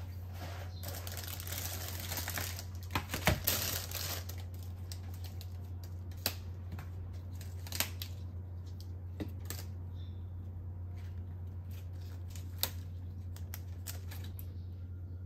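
Leaves being snapped and peeled off a head of lettuce, with a stretch of crinkling and rustling in the first few seconds and a few sharp single snaps later, over a steady low hum.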